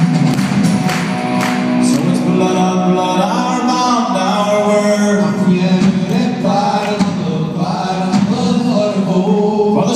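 Rock band playing live through a concert-hall PA: sustained chords with a male voice singing over them from a few seconds in.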